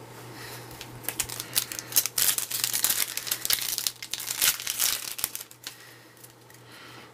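Baseball card pack wrapper being torn open and crinkled: a dense crackling from about a second in until near the end, then quieter.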